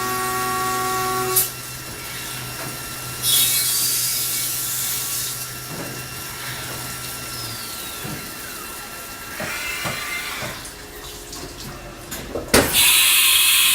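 1996 Haas VF-3 CNC vertical mill stopping its spindle and changing tools. The steady spindle whine stops with a click about a second in. Loud hissing air blasts come about three seconds in and again near the end, with falling tones and a few clunks from the tool changer between them. The tool change runs smoothly.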